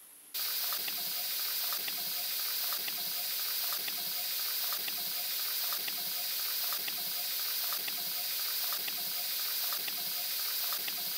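Steady hiss that starts suddenly, with faint ticks scattered through it.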